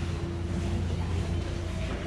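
Steady low rumble with a thin, even hum above it, and faint chatter of a crowd walking nearby.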